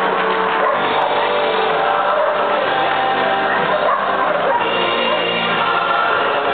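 Music with singing, held notes throughout at a steady level.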